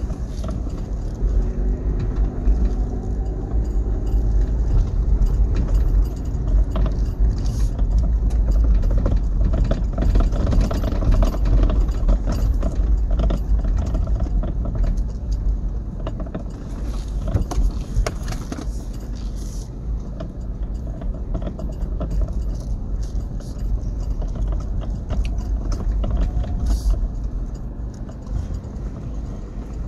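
Inside the cab of a 2005 Toyota Prado crawling over a rough dirt track: a low engine and road rumble, with frequent rattles, knocks and jangling from the body and loose items as it bumps along.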